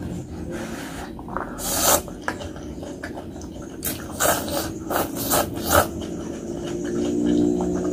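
Close-up eating sounds of a spicy noodle and meatball meal: a wet slurp about two seconds in, then a run of short, wet bursts of slurping and chewing about halfway through.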